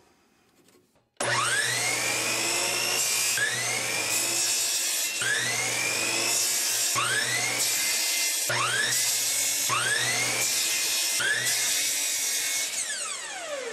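Hitachi C12RSH sliding compound miter saw starting about a second in and crosscutting a one-inch-square wood blank into short pieces, several cuts in a row. After each cut the motor's whine climbs back up in pitch. Near the end the saw winds down with a falling whine.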